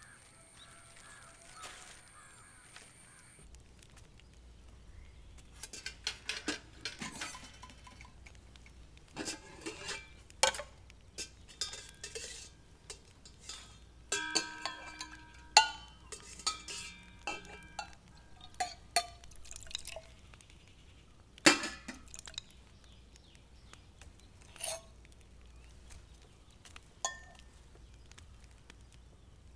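Steel kitchen utensils being handled: a steel tumbler and pots clinking and knocking against each other and the counter, a string of irregular sharp clinks, some with a brief metallic ring.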